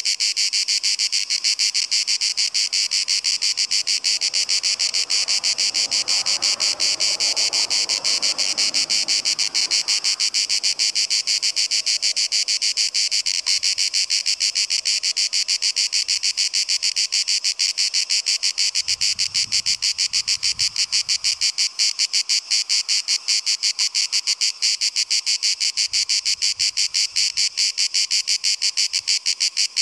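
Cicadas chorusing: a loud, steady buzz made of rapid, even pulses.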